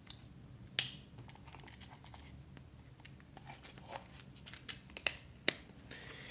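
Slipjoint pocketknives being handled and set down on a table: one sharp click about a second in, light rustle and clatter, then a quick cluster of clicks near the end.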